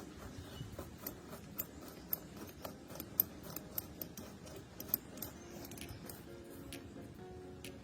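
Light clicks and taps of small metal parts being handled and fitted, coming at irregular intervals.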